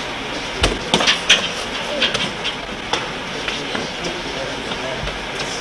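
Karate sparring: several sharp thumps and slaps from kicks, strikes and footwork, most of them in the first three seconds, over a steady hiss.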